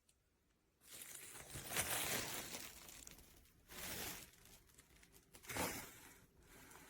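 Crinkling and rustling of something being handled, in three bouts with short pauses between.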